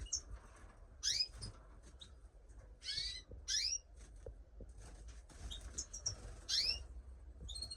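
Caged canaries and finches chirping: several short calls that rise in pitch, in small clusters with pauses between them.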